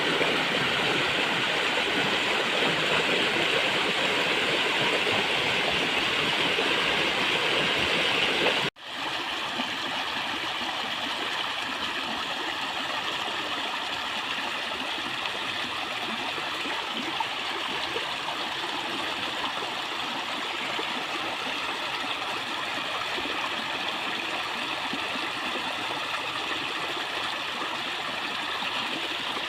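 Water running steadily. About nine seconds in the sound cuts out for an instant and comes back quieter.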